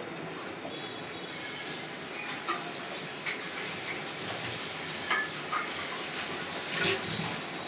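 Food sizzling in a pan, the hiss getting louder about a second in, with a spatula knocking and scraping against the pan now and then.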